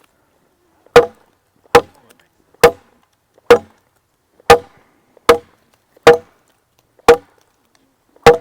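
Machete chopping into a piece of wood: nine sharp, separate strikes, about one a second, each with a brief ring.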